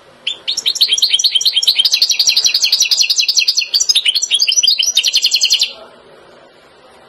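Caged European goldfinch (maviş) singing a fast, loud run of twittering high notes for about five seconds, which stops abruptly near the end.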